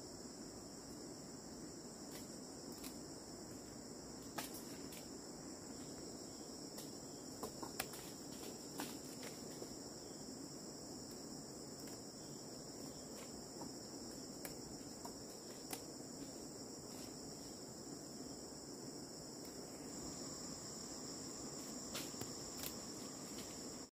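Insects trilling steadily in a continuous high-pitched drone, with scattered light clicks and taps over a low background rumble.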